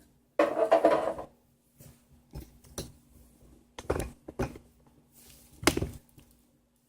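Handling noise: a short rustle or scrape about half a second in, then scattered clicks and knocks, the loudest near the end, over a faint steady hum.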